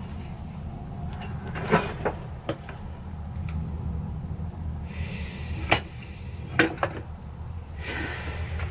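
Handling clatter on a cluttered workbench: a few sharp knocks and clicks as a handheld work light is picked up and set down, with brief rustling twice, over a low steady hum.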